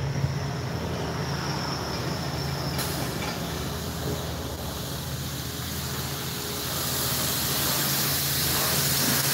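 Steady hum of self-serve car wash equipment, with a spraying hiss that grows louder over the last couple of seconds.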